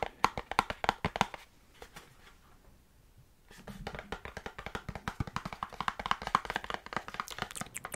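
Fingers tapping on a cardboard product box: a flurry of sharp taps, a pause of about two seconds, then a fast, steady run of taps.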